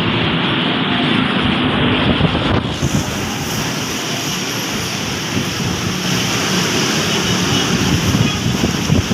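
Strong storm wind blowing hard and buffeting the microphone, heard as a steady, loud rush of noise. About three seconds in, the sound turns brighter with more hiss.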